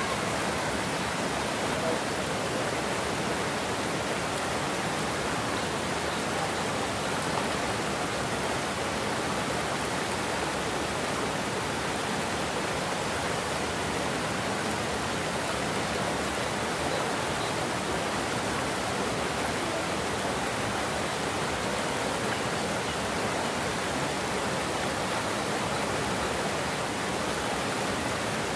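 Steady rush of water pouring over a low concrete weir and churning into white water below, even and unbroken throughout.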